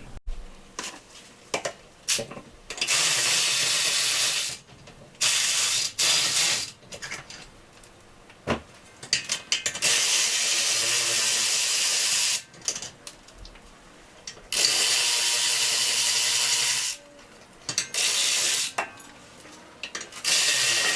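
Power ratchet run in repeated bursts of one to three seconds, each a steady hiss, backing out the bolts that hold a wheel hub assembly, with small clicks and clanks of tool handling between the bursts.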